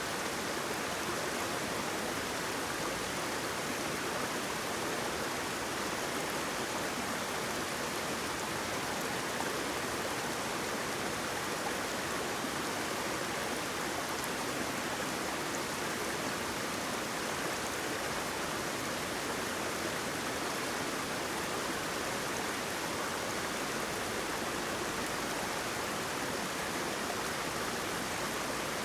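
Flowing water, a stream or small waterfall, rushing steadily with an even hiss.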